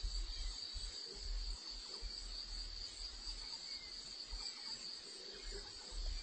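A steady, high-pitched insect trill over a faint low rumble.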